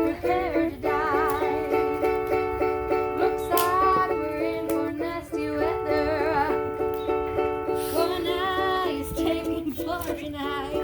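Background music with a ukulele and a wavering melody line over steady held notes.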